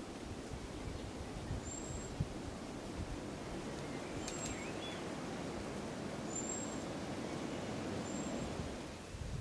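A small bird gives thin, very high single notes, four of them about two seconds apart, with a short extra chirp after the second. Under them runs a steady low outdoor rumble.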